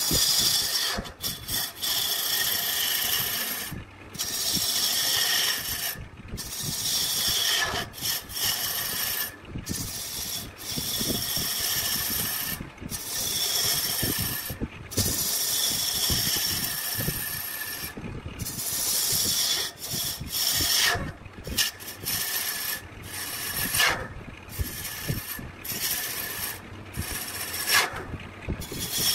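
Woodworking tools working wood in a run of short passes, each with a high whine that slides down in pitch, broken by brief pauses.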